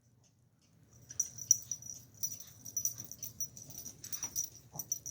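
Puppy snuffling and wheezy breathing close by, with faint irregular scratchy clicks starting about a second in.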